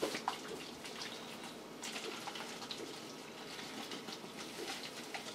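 Small plastic feeding bottle of puppy milk formula being shaken to mix the powder into the water: faint liquid sloshing with light scattered clicks.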